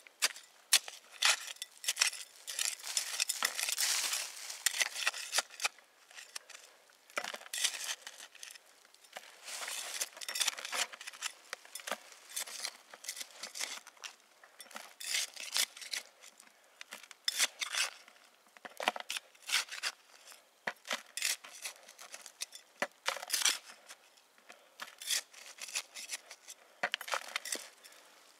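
A small hand tool scraping and scooping dry forest soil and leaf litter, an irregular run of gritty scrapes and clicks.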